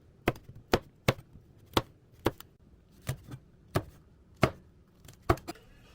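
Kitchen knife chopping food on a cutting board: about ten sharp, unevenly spaced knocks.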